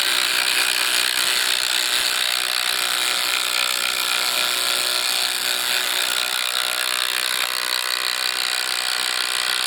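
Two cordless brushless impact drivers, a Makita TD171 and a Ridgid Octane, hammering together at a steady rapid rate as they drive large T50 bolts into a 6x6 timber.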